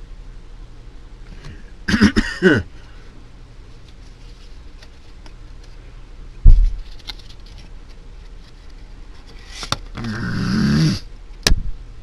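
A young man's wordless frustrated groans: a short one with falling pitch about two seconds in, and a longer, louder one near the end. Between them comes a single loud low thump, the loudest sound, about six and a half seconds in, and a sharp click follows shortly after the second groan.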